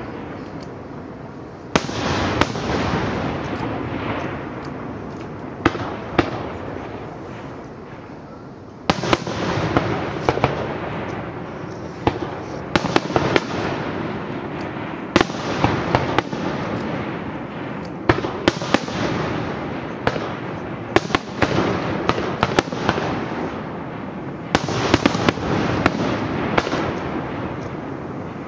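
Aerial fireworks bursting one after another: sharp bangs and clusters of quick pops, with heavier bursts about 2, 9, 15 and 24 seconds in, each trailing off in a long echo.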